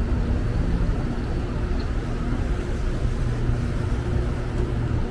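City street traffic noise: a steady low engine rumble and hum from passing and idling vehicles.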